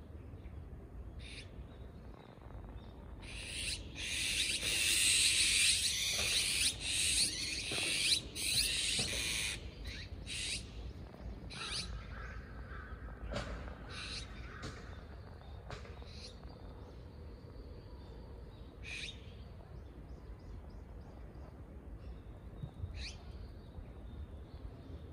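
Azure-winged magpies calling harshly, with a loud run of overlapping rasping high-pitched calls starting about three seconds in and lasting some six seconds. After that come scattered single short calls.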